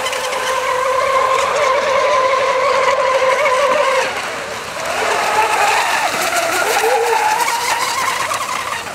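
Several radio-controlled racing boats running flat out, their motors giving a high-pitched whine that wavers in pitch. The sound dips briefly about halfway through, then picks up again with the pitch shifting.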